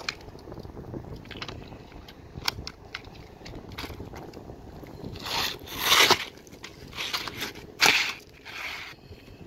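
Asphalt roofing shingles scraping and crackling as they are slid and pressed into place on the roof, with faint clicks early on and several louder gritty scrapes in the second half.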